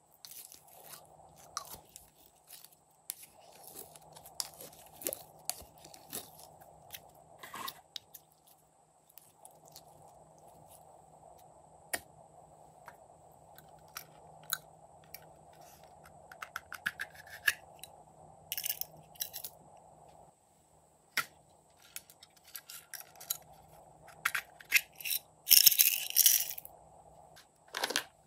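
Small plastic toy containers clicking and rattling as they are handled and opened, with little metal charms clinking as they are tipped out onto slime. The clattering is loudest near the end.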